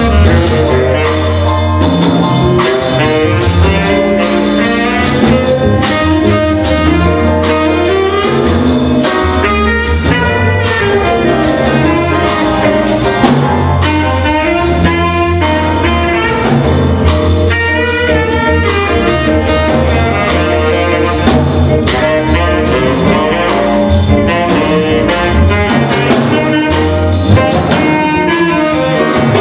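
Student jazz combo playing live: alto and tenor saxophones and trumpet over electric guitar, bass and drum kit, with a steady beat and a busy low bass line.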